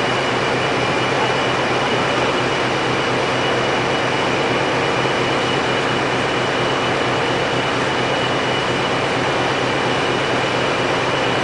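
Heavy lifting machinery running steadily: an even mechanical drone with a low hum and a thin, high, steady whine.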